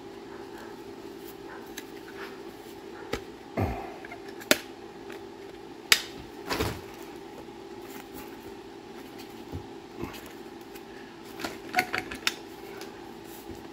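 Scattered sharp clicks and knocks of a tool and an adhesive cartridge gun being handled on a workbench, a few in a quick cluster near the end, over a steady low hum.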